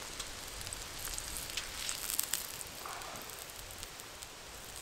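Bone-in ribeye steak sizzling on a hot, oiled slate slab over a campfire, with sharp crackles from the fire and fat; the crackling is busiest about two seconds in, as the steak is lifted from the stone.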